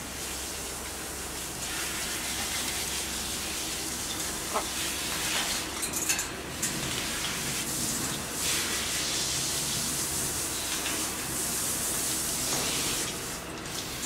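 Water spraying in a steady hiss, as when bathing dogs, with a few faint clicks and a brief squeak about four and a half seconds in.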